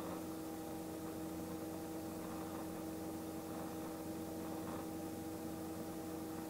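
Light training helicopter heard from inside the cockpit on the final stage of a slow approach to land. It makes a steady drone with a constant hum that does not change in pitch or level.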